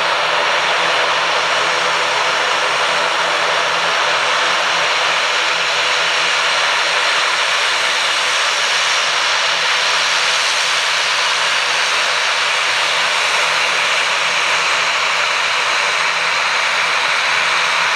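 Airliner engines running steadily: an even, loud hiss over a low hum that neither rises nor falls.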